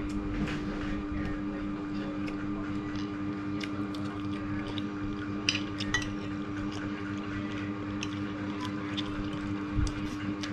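Spoon and fork clicking and scraping on a plate in scattered light clinks while a person chews food, over a steady low hum.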